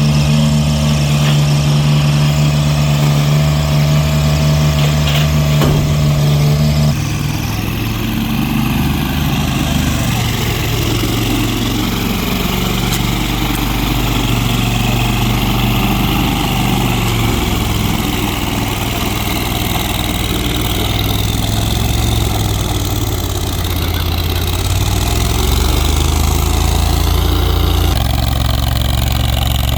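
A large engine running continuously. About seven seconds in its note changes, then wavers up and down through the middle, with another shift near the end.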